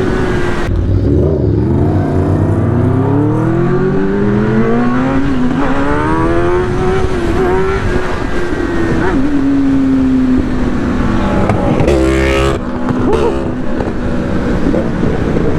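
Motorcycle engine pulling away and accelerating, its pitch rising over several seconds and then holding steady at cruise, with wind rush over the rider's microphone. About twelve seconds in there is a short rush of noise.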